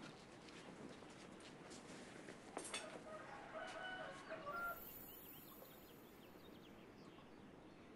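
A faint bird call of about a second and a half, in a few broken segments, a little past the middle, just after a short click, over a low steady hiss.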